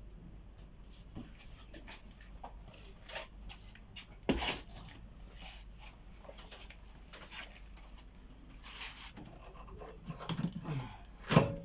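Faint, scattered clicks and knocks of things being handled, with a louder knock about four seconds in and another near the end.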